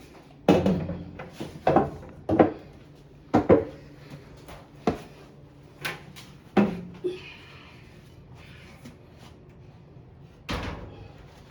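A run of irregular sharp knocks and bangs, about ten, from handling the clothes dryer's parts during reassembly, with a pause before a last bang near the end.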